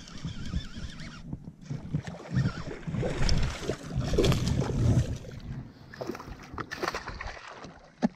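Water splashing beside a bass boat as a hooked bass is fought at the surface, with wind rumbling on the microphone in uneven gusts.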